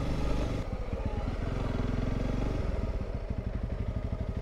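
Honda CRF300 Rally's single-cylinder engine heard from the rider's seat as the bike slows. The rush of wind falls away about half a second in and the engine settles into an even, pulsing low-speed beat, its note shifting a little past the middle.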